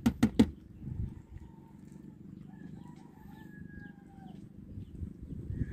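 Four quick, sharp knocks in the wooden boat as shrimp is handled, followed by a low, steady rumble of wind and water. A faint, drawn-out distant call comes about three seconds in.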